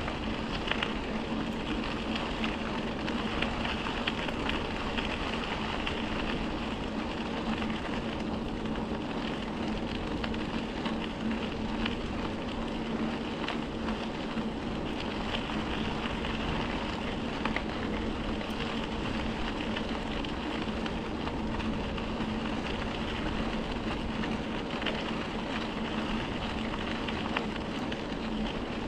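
Bicycle tyres rolling steadily along the trail surface, a continuous rushing noise with a steady hum under it.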